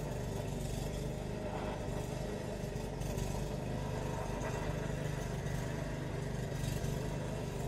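A motor or engine running steadily, a constant low hum that stays the same throughout.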